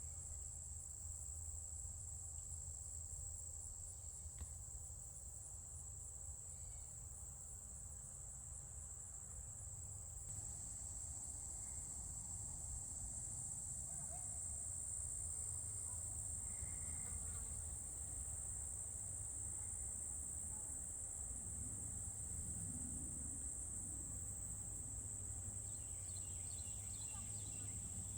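Singing insects trilling in a steady, high-pitched chorus, a little louder about ten seconds in.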